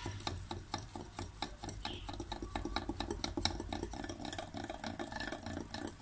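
Wire balloon whisk beating flour into pancake batter in a glass bowl: a quick, even run of strokes with the wires clicking against the glass.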